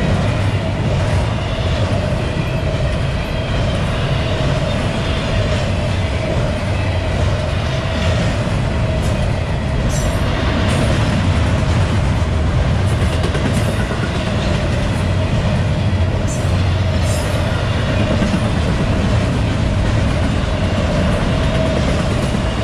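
Double-stack intermodal freight train passing at speed: a steady rumble and rattle of well-car wheels on the rails, with a constant high tone running over it.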